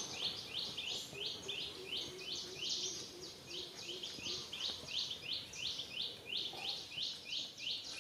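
Outdoor ambience of steady, rhythmic high-pitched chirping, about four chirps a second, each chirp starting sharply.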